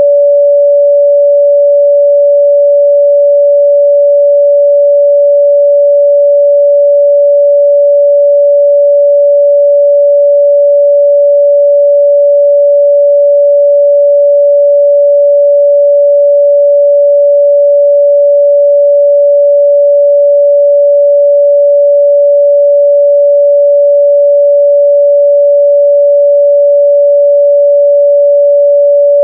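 A pure 574 Hz sine-wave test tone, held steady and loud at one pitch.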